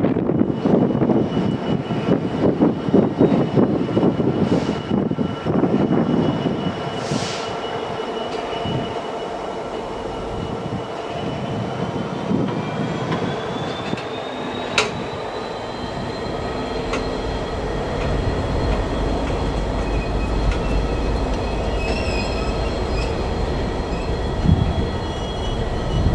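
Freightliner Class 66 diesel locomotive hauling loaded stone wagons slowly: the wagons' wheels clatter and rumble at first, then a steady high-pitched wheel squeal sets in and rises slightly in pitch, with a sharp click about halfway through. A deep engine rumble builds over the last third.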